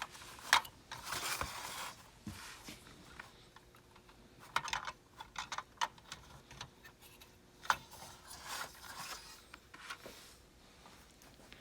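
Small plastic toy playset pieces being handled: scattered sharp clicks and taps with soft rubbing and scraping in between.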